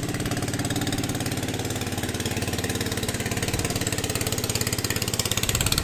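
Motorboat engine running steadily as the boat passes on the river, with a fast even firing beat, growing a little louder near the end.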